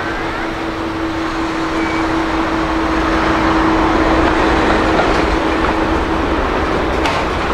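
Boeing 767-300ER's twin turbofan engines during the landing rollout: a steady rushing jet noise with a held hum, swelling around the middle as the airliner decelerates down the runway.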